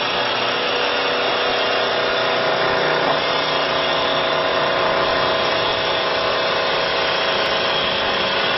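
CNC wood lathe running, its cutter shaving a spinning wooden blank into a turned profile: a steady cutting hiss over a constant motor whine.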